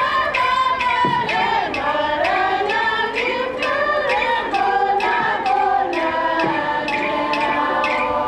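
A group of people singing together, their voices sliding between notes, over a steady struck beat at about two to three beats a second.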